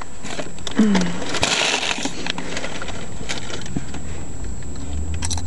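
Handling noise from a small digital camera being fumbled into place: rustling and scattered clicks, with a brief falling squeak about a second in. A low steady hum from the car comes in about halfway.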